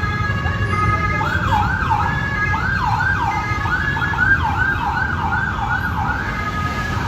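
Emergency vehicle siren in a rapid yelp, its pitch sweeping up and down about twice a second from about one second in until near the end, over the steady rumble of congested road traffic.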